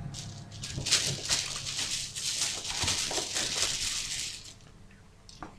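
A hand rummages in a bag of game dice, rustling the bag while the dice clink together inside it as they are drawn out. The rustling stops about four and a half seconds in, and a couple of sharp dice clicks follow near the end.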